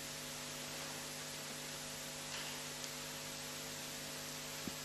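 Steady electrical hum over a faint even hiss: the background noise of the recording chain, with no other event.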